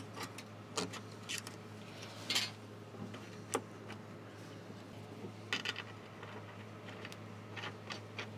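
Scattered light metallic clicks, taps and short scrapes as a steel backing plate is fished into place inside a car's body panel on a loop of MIG wire, over a low steady hum.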